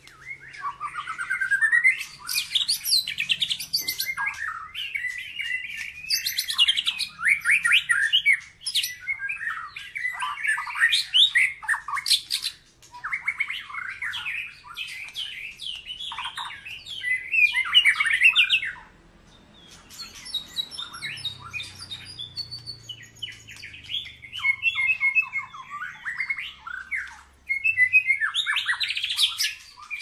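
White-rumped shama in full song: a fast, unbroken run of varied whistled phrases and rapid trills, with one brief pause about two-thirds of the way through.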